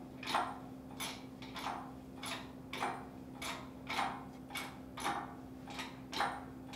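Hydraulic pump of a Pittsburgh 2-ton engine hoist being worked by its handle under the load of a roughly 370-pound milling machine: a steady rhythm of short, falling swishing creaks, a little under two a second, over a faint steady hum.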